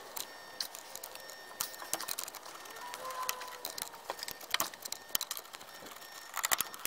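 Scattered light clicks and taps of hands and a wrench working at the brake master cylinder's line fittings, irregular and without a steady rhythm.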